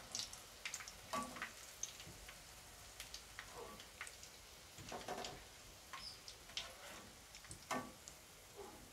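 Prawn chops frying in hot oil: faint sizzle with scattered, irregular crackles and pops.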